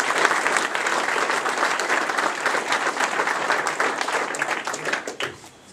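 Audience applauding, many people clapping at once, stopping about five seconds in.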